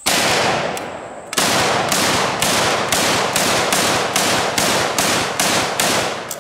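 Street Sweeper 12-gauge drum-fed shotgun firing: a single shot, then a little over a second later a fast run of a dozen or so shots, about two or three a second, each with a short echo, until the drum is emptied near the end.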